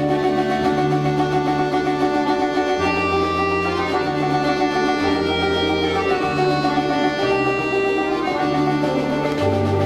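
Orchestra of Russian folk instruments playing, with plucked strings such as domras and balalaikas over a low bass line that moves from note to note about once a second.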